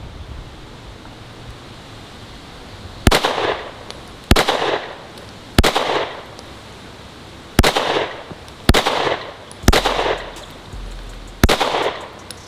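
Seven 9mm pistol shots from a Springfield Echelon 4.0C, fired one at a time at an uneven pace about one to two seconds apart, each followed by a short echo.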